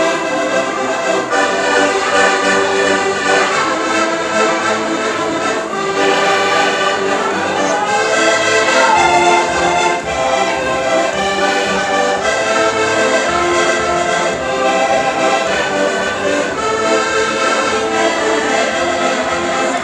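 Four button accordions playing a tune together, with the bellows-driven reeds sounding full chords and melody without a break.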